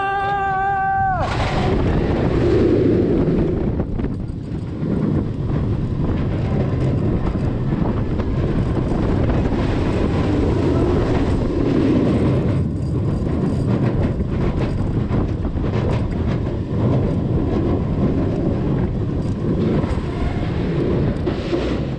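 A rider screams with a rising, held cry as the SheiKra dive coaster train drops. Then steady wind rush over the microphone and the rumble of the train running along its track fill the rest of the ride.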